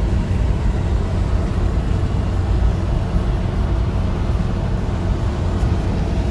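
Kia Bongo III Coach campervan cruising on the highway, heard from inside the cabin: a steady low drone of engine and road noise.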